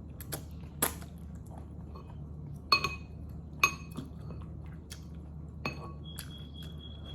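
Eating utensils clinking against dishware, four sharp ringing clinks, the middle two the loudest, with a brief steady high tone near the end.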